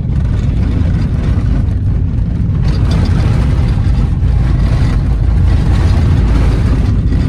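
Steady low rumble of a Toyota Yaris driving on an unsealed gravel road, heard from inside the cabin: tyre and road noise with the engine underneath.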